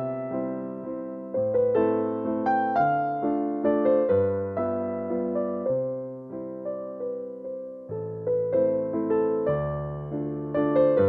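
Background piano music: gentle, slow notes with chords in the low register.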